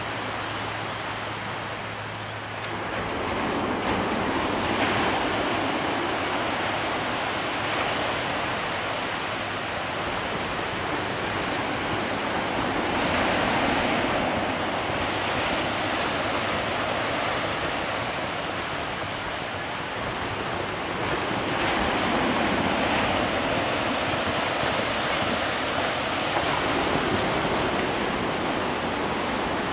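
Ocean surf washing onto a sandy beach: a steady rushing noise that swells and eases every several seconds.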